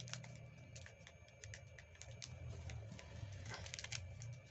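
A sheet of origami paper crackling in the fingers as it is folded and creased, a run of quick, irregular crackles and clicks, over a steady low hum.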